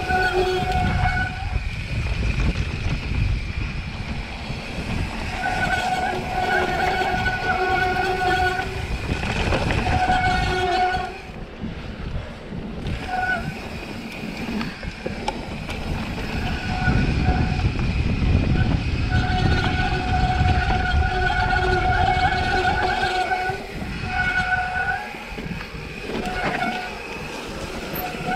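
Mountain bike on a fast rocky descent, with wind and tyre rumble throughout. Over it, the disc brakes squeal in a steady pitched tone that comes and goes in stretches of one to three seconds as the rider brakes.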